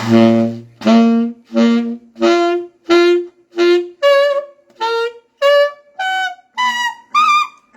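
Saxophone playing the harmonic series: about twelve short, separate notes climbing step by step from a low note into the high register, where the tone turns bright and trumpet-like.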